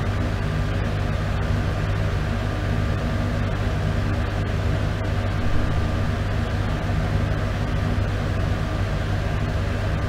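Bathroom exhaust fan running steadily: a low motor hum under a constant rush of air.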